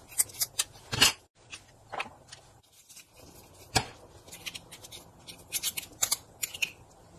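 Metal garlic press squeezing garlic cloves: scattered short clicks and scrapes from its hinged handles and from the garlic being pushed and scraped off the press.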